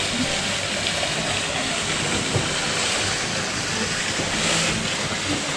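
A steady, even rushing noise outdoors, with no distinct events in it.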